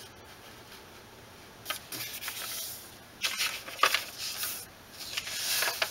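A creased sheet of origami paper rustling and crinkling in several short spells as it is unfolded and pressed flat on a tabletop.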